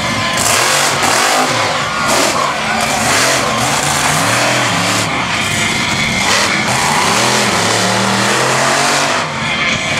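Monster truck engine revving up and down repeatedly as the truck runs a dirt course.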